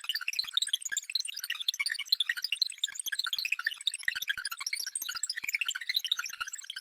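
Synthetic sci-fi computer data-transfer sound effect: a rapid, continuous stream of short high-pitched electronic blips and chirps, steady throughout.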